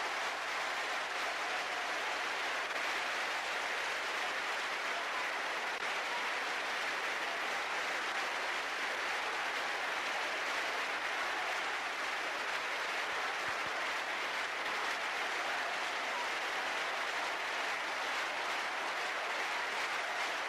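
Steady applause from a large arena crowd, holding at an even level with no swells or breaks.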